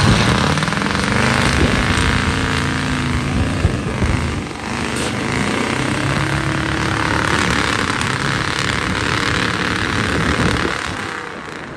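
Off-road truck engine revving hard under load as it climbs out of a mud pit, its pitch rising and falling with the throttle. It fades about eleven seconds in.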